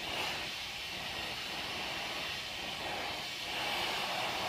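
Oxy-acetylene torch flame hissing steadily, a hot blue-tipped flame heating a piece of steel toward red heat.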